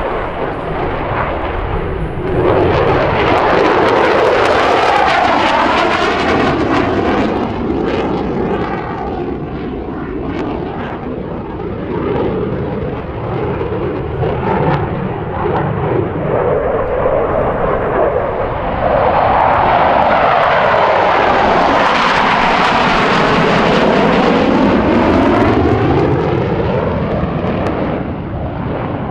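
F-16 Fighting Falcon jets flying past at an airshow, loud jet noise. It swells a couple of seconds in and again about two-thirds through, and each pass carries a sweeping rise and fall in tone as the jet goes by.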